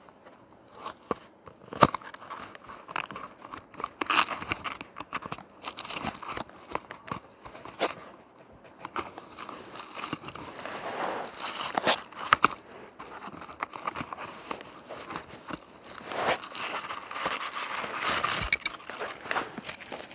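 A cardboard toy-car box being opened by hand, then a small die-cast car in a thin plastic bag being pulled out. Scattered clicks and taps of card and fingers, with longer stretches of plastic crinkling about halfway through and again near the end.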